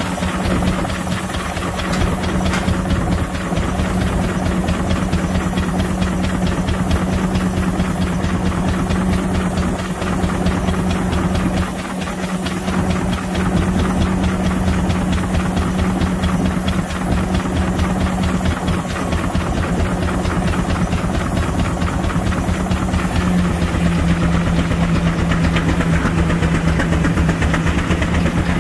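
George White steam traction engine running steadily, with steam hissing and a fast, even exhaust beat. A steady hum sits underneath it and drops slightly in pitch about three-quarters of the way in.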